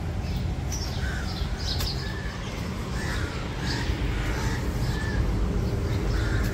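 Crows cawing in the trees, several short calls in a row over a low, steady rumble of city traffic.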